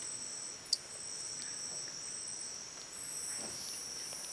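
A chorus of insects: a steady, high-pitched trilling, with a still higher trill that stops and starts every second or so. A single short, sharp click comes a little under a second in.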